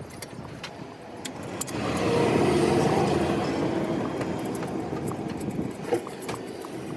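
A road vehicle passing close by, its noise building about a second and a half in and slowly dying away, with a few light metallic clinks near the start.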